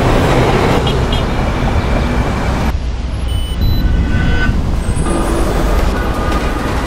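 Traffic and bus noise: a steady low engine rumble under road hiss. The sound changes abruptly about a second in, and turns muffled for a couple of seconds from about three seconds in.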